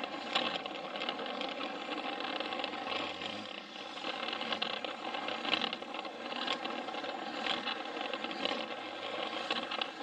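Plarail toy train's small battery motor and gearbox running with a steady whine, with occasional clicks and rattles as it moves along the plastic track.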